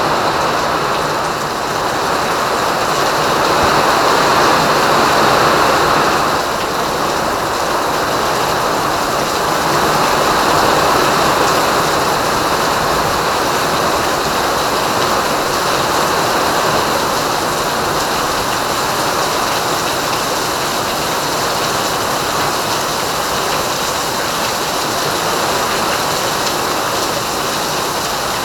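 Heavy rain pouring down steadily, a dense rushing hiss that swells louder twice, a few seconds in and again around ten seconds in.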